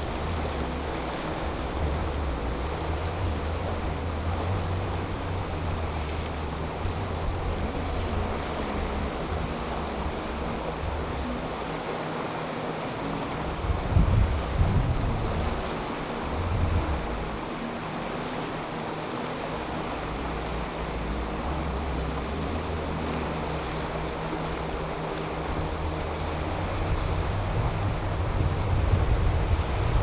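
Wind buffeting the microphone as a low rumble, with stronger gusts about halfway through and again near the end, over a steady high insect drone.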